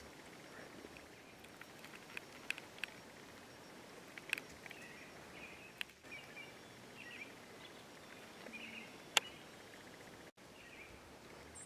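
Quiet outdoor background with faint, scattered bird chirps and a few sharp clicks, the loudest about nine seconds in.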